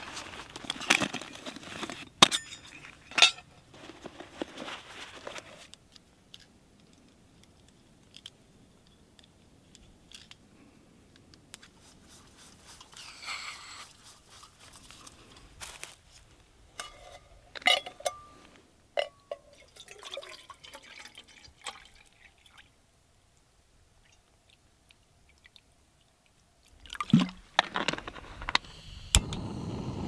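Camp cooking gear being handled: scattered rustling, metallic clicks and clinks as a gas canister stove and a metal pot are put together, with long quiet pauses between. Near the end there is a sharp click, and then a steady hiss begins as the stove burner is lit.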